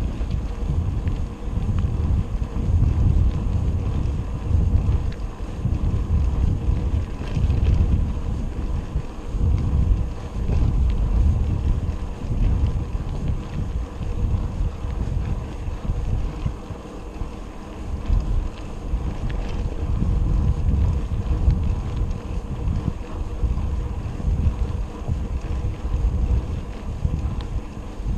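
Wind buffeting the microphone while riding a bicycle: a low, gusting rumble that swells and fades irregularly.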